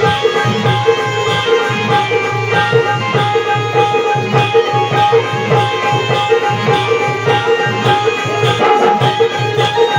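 Dholki (two-headed barrel drum) played in a fast, driving Balya dance rhythm, with a bright tick about twice a second and a steady held droning note over it.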